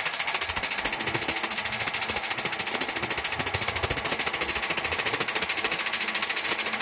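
Cummins Big Cam inline-six diesel engine of a 250 kVA generator set running steadily, with an even, rapid diesel clatter.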